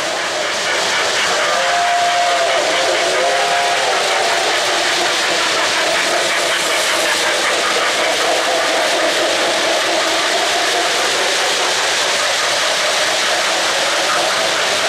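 Lionel O-gauge freight cars rolling past on three-rail track: a steady hiss and rattle of metal wheels on the rails. A faint whistle tone sounds twice between about two and four seconds in.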